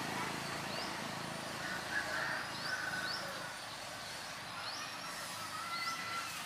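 A vehicle engine running in the background, fading after about two seconds, with short high chirps repeating throughout.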